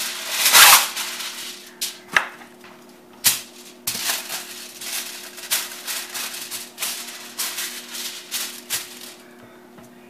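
Aluminum foil crinkling and crumpling in irregular bursts as hands fold and press it into shape, loudest about half a second in.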